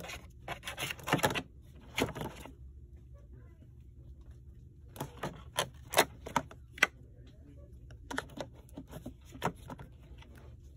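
Irregular sharp clicks and clacks in three clusters over a steady low hum.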